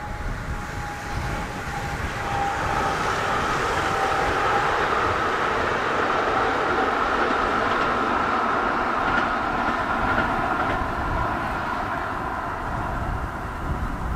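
Two coupled Pesa Elf 2 (22WEd) electric multiple units passing, the sound building over the first few seconds and easing off slightly near the end. A steady whine sits above the rumble of wheels on rail.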